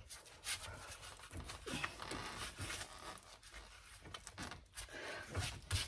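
Faint scraping and clicking as a brake pad is worked back out of the caliper bracket by hand, its metal clip rubbing against the bracket. A few sharper clicks come near the end.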